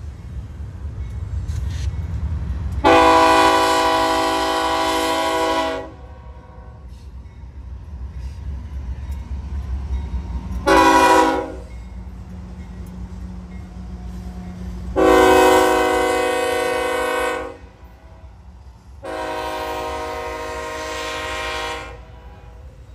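Freight diesel locomotive's multi-chime air horn sounding four blasts: long, short, long, and a last long one that is quieter. Underneath is the low rumble of the train's engines and cars.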